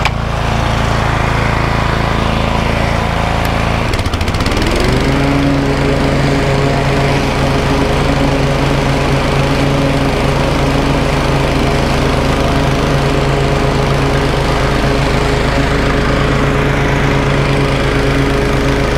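Toro TimeMaster 30-inch push mower's engine running while mowing grass at a low cutting height. About four seconds in the engine note dips briefly, then climbs and settles to a steady higher speed for the rest of the pass.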